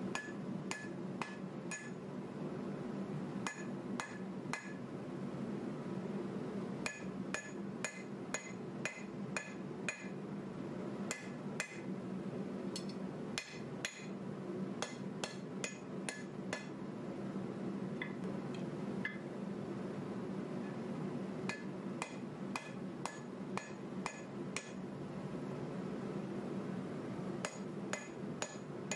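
Hand hammer forging hot 1095 steel bar on an anvil: sharp ringing blows in runs of several, about two or three a second, with short pauses between runs. A steady low hum runs underneath.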